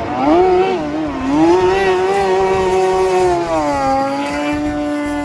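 Classic racing boat's outboard motor running at high revs, its pitch wavering up and down as the boat corners, then holding steady before falling to a lower, even note about four seconds in.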